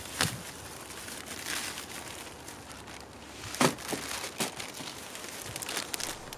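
Clear plastic bag holding metal hose clamps crinkling as it is picked up and handled, with a few sharper clicks, the loudest about three and a half seconds in.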